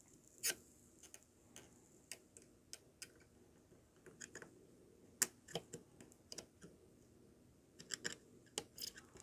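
Faint, irregular small clicks and ticks as a pair of Sequre HT140 hot tweezers grip and heat a crystal oscillator's solder joints on a circuit board, loosening it.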